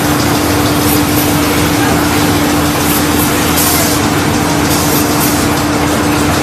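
Maxi roll toilet paper band saw cutting machine and its conveyor running, a steady loud machine noise with a constant hum. Two short bursts of hiss come about halfway through.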